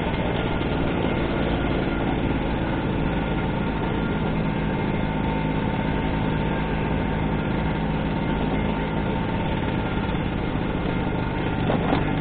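Vespa scooter engine running steadily at an even cruising speed, with a brief louder sound near the end.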